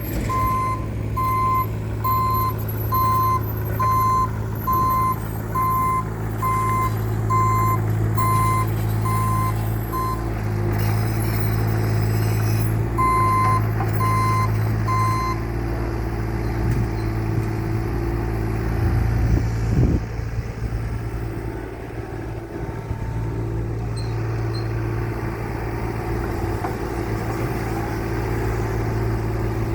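Takeuchi TB216 mini excavator's Yanmar diesel engine running steadily while its warning alarm beeps about once a second, for roughly the first ten seconds and again three times a little before the middle. Then the engine runs on without the alarm.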